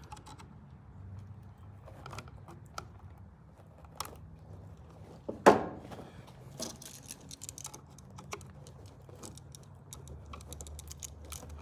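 Scattered small clicks, taps and rattles of hands and tools working on an electrical outlet, with one sharp, loud click about five and a half seconds in, over a low steady hum.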